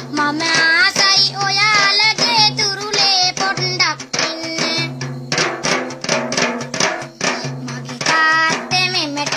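A boy singing a song while a tambourine is struck in rhythm with its jingles rattling. A low held note sounds beneath in stretches.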